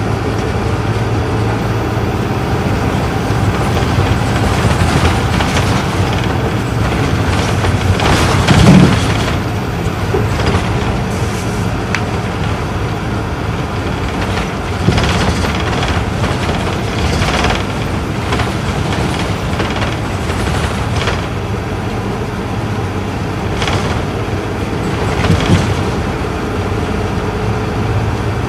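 Isuzu Erga Mio bus's inline-six diesel engine running at steady cruise, heard from inside the passenger cabin with road and body noise. A loud knock comes about nine seconds in, with smaller knocks near the middle and near the end.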